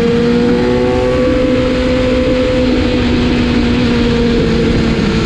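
BMW S1000 RR's inline-four engine running at high, nearly steady revs, its pitch sagging slightly, over a loud steady rush of noise.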